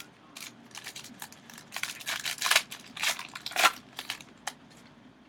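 A 2014 Panini Classics baseball card pack being opened and its cards handled: a string of short, irregular crinkles and crackles from the wrapper and cards, busiest in the middle.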